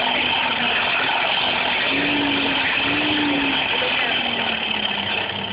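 Steady mechanical running noise, like a motor or blower, with two brief low hums about two to three seconds in.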